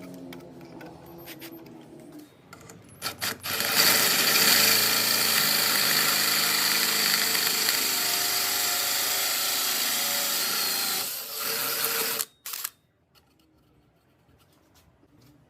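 Power drill with a hole saw starting in a few short bursts, then running steadily for about eight seconds. It stops suddenly, gives one more brief burst, then falls quiet.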